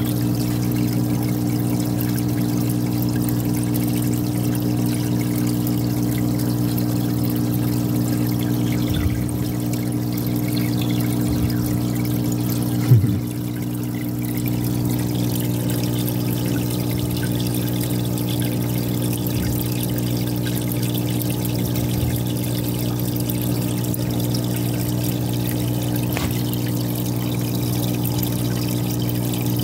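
Aquarium filter pump running with a steady hum while water pours and trickles back into the fish tub. A single short bump sounds about halfway through.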